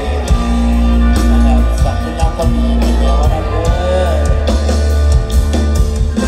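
Mor lam sing band music played loud, with a heavy electric bass, a drum kit keeping a steady beat, and melodic lines over the top.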